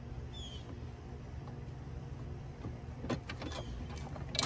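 A few sharp clicks and knocks of hand tools on the battery bracket hardware, the loudest near the end, over a steady low hum.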